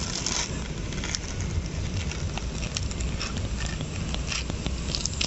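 Ripe palmyra palm fruit being peeled by hand: the tough dark skin and cap tearing away from the soft fibrous pulp in scattered crackles and small snaps, over a low steady background rumble.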